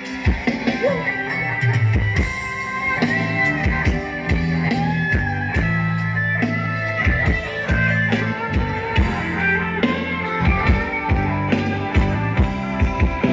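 Instrumental break of a live band song, with an electric guitar lead playing over a drum kit and heavy sustained bass, loud through a sound-truck PA system.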